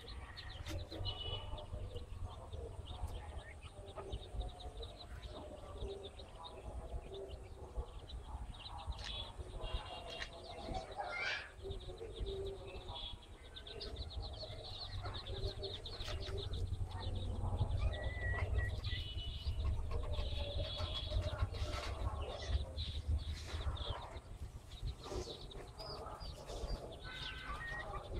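Chicks peeping in short high chirps and a mother hen clucking as they forage, over a steady low rumble.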